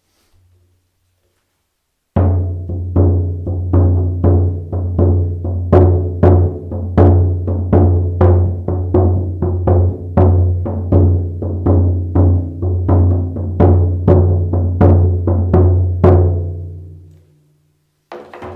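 Shaman drum beaten in a steady rhythm of about two to three strokes a second, each stroke adding to a deep, ringing boom that carries between strokes. The beating starts about two seconds in and stops near the end, letting the drum ring out, and one last single stroke follows.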